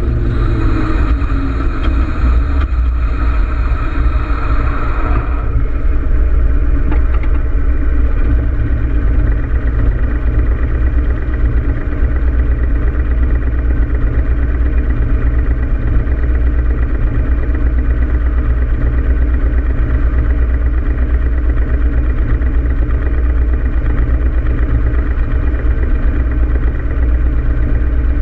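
Harley-Davidson Road King Classic's V-twin engine slowing, its pitch falling in the first couple of seconds, with wind and road hiss that cuts off about five seconds in as the bike comes to a stop. It then idles steadily with a deep, even rumble.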